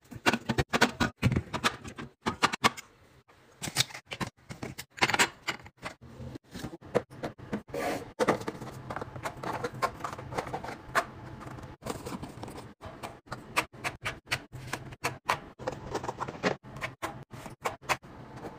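Quick, irregular clicks and taps of items being set in place by hand: aluminium drinks cans on a fridge shelf, then plastic Dolce Gusto coffee capsules dropped one after another into a drawer organizer.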